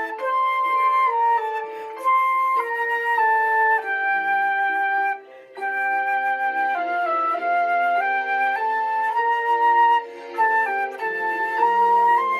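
Electronic keyboard playing a melody of held notes in a flute-like voice over lower accompanying chords, with a brief break about five seconds in.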